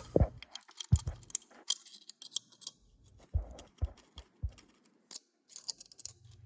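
Scattered light metallic clicks and taps of hand tools working on the exposed valve gear of a Honda TRX300EX engine while the valve clearances are checked, with a few duller knocks in the middle. The valves are found too tight, with no play on the intakes.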